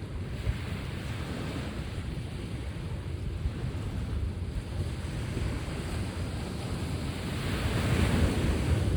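Sea waves washing onto the shore with a steady rush, one wave swelling louder near the end, with wind rumbling on the microphone.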